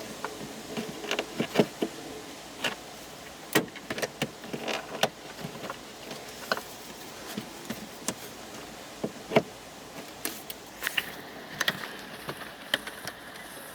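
Irregular small clicks, taps and scrapes of needle-nose pliers working old plastic retaining clips out of the mounting holes in a dashboard.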